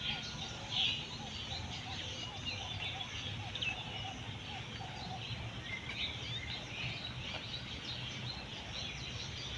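Many birds chirping, one louder call about a second in, and a lower call repeated evenly through the first half, over a steady low rumble.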